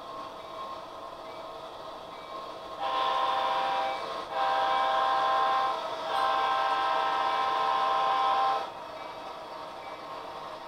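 Recorded diesel air horn from an HO-scale model locomotive's sound system, sounding three steady blasts, the last and longest about two and a half seconds, over a faint steady hum from the running model train.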